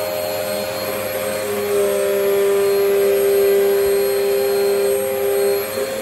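A bagless upright vacuum cleaner running steadily, its motor whining with a hum. From about a second and a half in until just before the end, it gets louder and a lower hum comes in.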